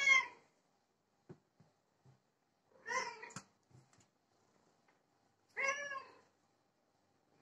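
Domestic cat meowing three times, each meow short and a few seconds apart, with a few faint taps in between.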